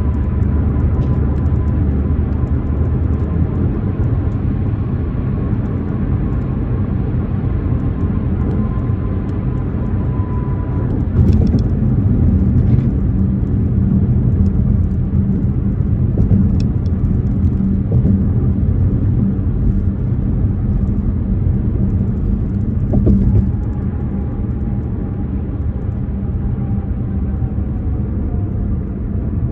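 2024 BMW M4 Competition's twin-turbo straight-six running while the car is driven, a steady engine and road rumble. It gets a little louder for about ten seconds in the middle.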